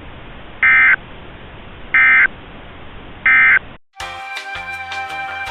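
EAS SAME digital data tones sent three times as short, identical warbling bursts, about a second and a third apart, over a steady radio hiss: the End of Message code that closes an alert. Music starts about four seconds in.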